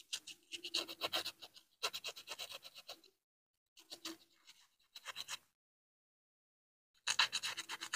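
Rapid back-and-forth scraping of sandpaper on the metal terminals of a blender motor's brush-holder assembly, cleaning off crust and rust. It comes in short bursts of about a second each, with a longer pause after the middle.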